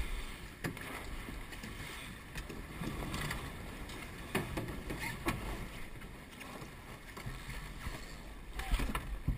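Water rushing and splashing along the hull of a Star-class keelboat sailing heeled over, with a steady low rumble and a few brief knocks and splashes.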